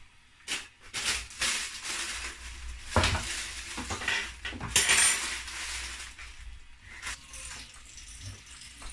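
Pots and pans clattering in a kitchen cupboard as a frying pan is pulled out: a run of knocks and scrapes, with a metallic clang about five seconds in, then a few lighter knocks.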